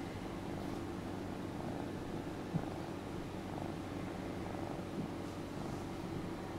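Ragdoll kitten purring steadily while being stroked.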